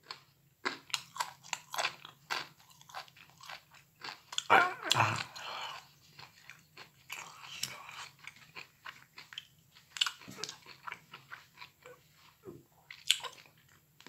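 Close-up chewing of microwaved broccoli: irregular wet mouth clicks and soft crunches, several a second, with a louder noisy stretch about five seconds in.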